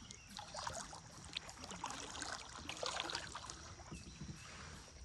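Kayak paddle dipping into the river, with irregular small splashes and water dripping and trickling off the blades.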